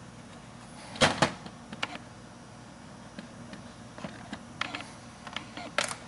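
Sharp clicks and knocks of hard plastic parts being handled and fitted on a fuel pump module. There is a loud double click about a second in, lighter ticks through the middle, and another loud click near the end.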